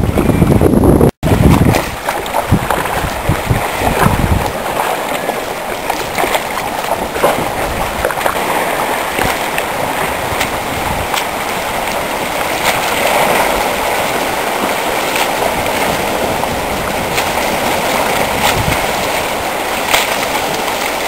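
Small waves of the Baltic Sea washing and sloshing among floating ice floes at the shoreline: a steady rushing with scattered small clicks. For the first two seconds, wind buffets the microphone in a loud low rumble, broken by a brief cut about a second in.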